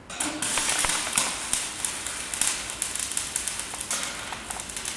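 Electric arc welding: a steady crackling hiss dense with sharp pops, starting and cutting off abruptly, as a column is tacked to its steel base plate.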